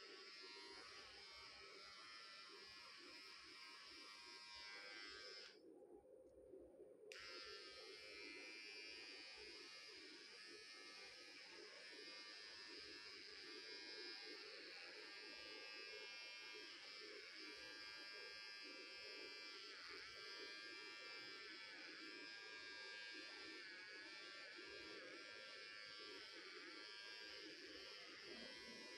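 Cordless electric hair clipper buzzing faintly and steadily as it shaves hair close to the scalp. Its higher whine drops out briefly about six seconds in.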